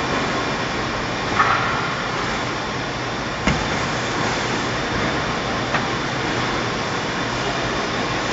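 Paper guillotine running with a steady mechanical hum amid workshop machinery noise, broken by three short sharp knocks: one about a second and a half in, one near three and a half seconds, and one near six seconds.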